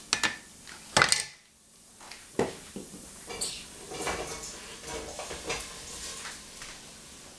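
Kitchen clatter as a cleaver and plastic cutting board are handled and set down on a tiled counter: a few sharp knocks, the loudest about a second in, then several seconds of lighter rattling.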